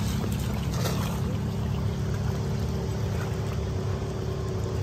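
A boat's engine running steadily: a low, even hum with several held tones.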